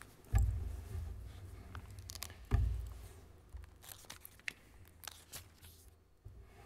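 Papers being handled close to a lectern microphone: rustling and small clicks, with two low thumps against the lectern, about a third of a second and two and a half seconds in.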